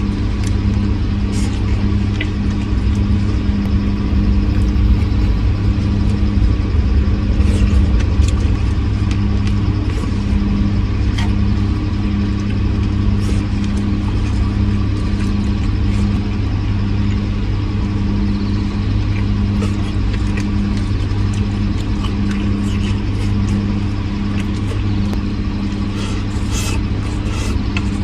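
A motor vehicle running steadily while underway, heard on board, as a constant low hum with a slightly pulsing drone.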